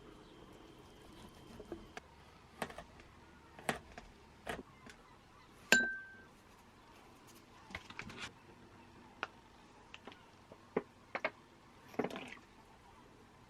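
Kitchen utensils and dishes clinking and knocking irregularly during meal preparation, about ten separate clicks, the loudest a ringing clink about six seconds in.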